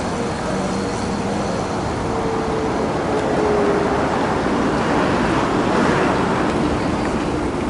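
Steady road traffic noise: a rush of passing vehicles, with one vehicle going by that swells about halfway through and then fades, its pitch sliding gently down.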